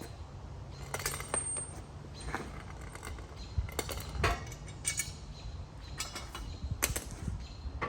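Irregular sharp metallic clinks and clicks as a mower blade and its bolt are handled and fitted to the deck spindle, some ringing briefly. A steady low hum runs underneath.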